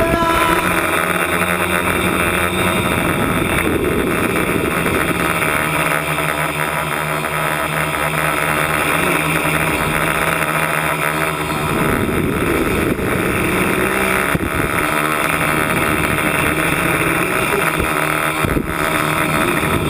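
A multirotor's brushless motors and propellers whining, their pitch rising and falling with throttle changes, mixed with wind rushing over the onboard camera's microphone.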